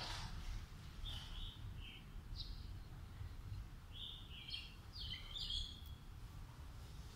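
Small birds chirping in short, scattered notes, most of them bunched together between about four and six seconds in, over a steady low rumble.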